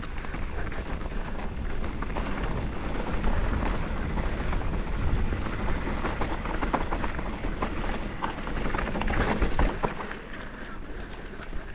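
Mountain bike descending a dirt trail: tyres rolling and crunching over dirt and stones, with the frame and chain rattling and clicking over the bumps, and wind buffeting the microphone. It eases off a little near the end.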